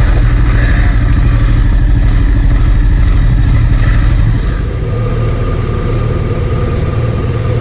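Motorcycle engine running steadily, a little quieter from about four and a half seconds in.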